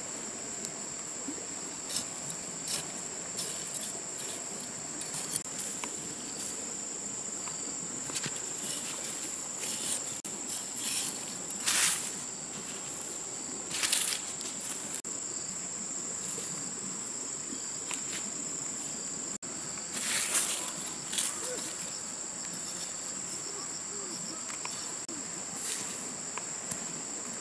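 Insects droning in a steady high-pitched hum, with several brief scrapes and rustles of dry soil and leaves as ground is cleared by hand and with a curved blade.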